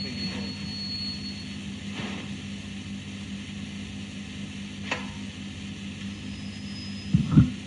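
A steady low hum with hiss, with a faint click about five seconds in and a short low thump near the end.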